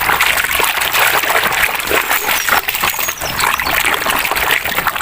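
Water running and splashing over a toy as it is washed, a steady spattering hiss.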